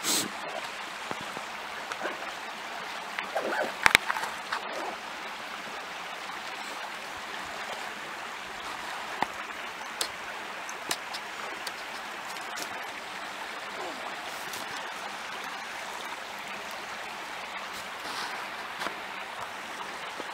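Small creek flowing in a steady rush of water, with scattered sharp clicks and knocks from handling fishing tackle; the loudest cluster comes about four seconds in.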